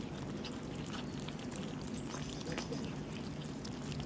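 Several cats eating from a plastic tub, chewing and smacking in small scattered wet clicks over a steady low background hum.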